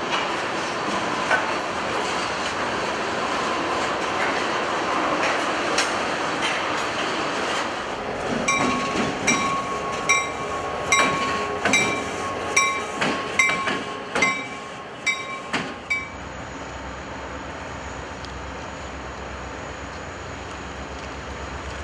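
Freight train cars rolling past with steady wheel-on-rail noise. From about eight seconds in, a bell rings for several seconds at roughly two strokes a second. Near the end it gives way to a quieter, steady low rumble of a more distant train.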